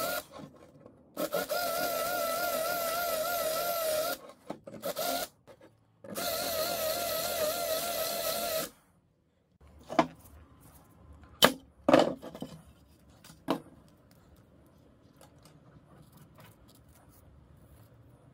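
Cordless drill with a twist bit running in several bursts, its motor whine wavering slightly in pitch as it drills into the metal frame of a loudspeaker to free the magnet. The drill stops about 9 seconds in, and a few sharp clacks of metal parts being handled follow.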